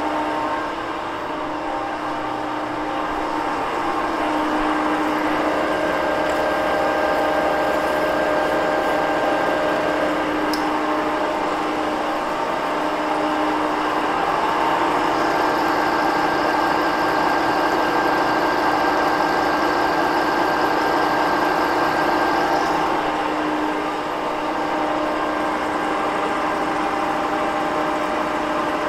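Cincinnati 2ML horizontal milling machine running under feed, its cutter milling a keyway along a metal shaft with oil coolant flooding the cut. A steady machine tone with an even cutting noise, dipping slightly about a second in.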